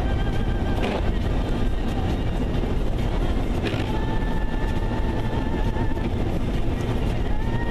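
Steady low rumble of a vehicle driving, heard from inside the cab, with faint music and its long held notes over it.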